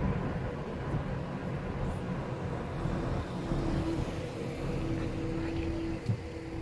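A car on the move, with a steady low rumble of engine and road noise. A faint steady hum comes in about halfway through.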